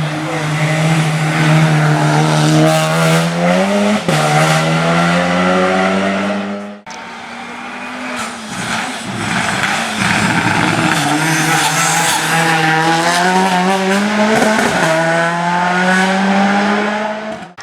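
Race car engine at high revs, its note climbing and dropping sharply as it shifts gear, once about four seconds in. After an abrupt cut a second pass follows, the engine pulling hard with further quick gear changes.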